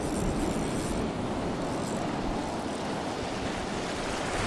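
Surf washing and breaking along the beach, a steady noise, with wind buffeting the microphone.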